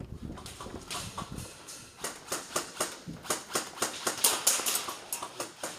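Running footsteps of an airsoft player crashing through dry brush or leaves. After a low rumble of movement, the steps settle into a quick, even rhythm of about three to four crunching strides a second.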